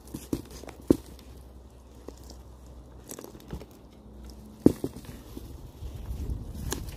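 Crunches and scattered knocks of loose potting soil and potatoes being handled after the potato barrel is dumped. The sharpest knocks come about a second in and again just before five seconds.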